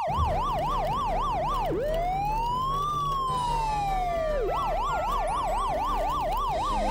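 Police car siren sound effect alternating between a fast yelp and a slow wail: rapid yelping for the first second and a half, one slow rise and fall, then rapid yelping again.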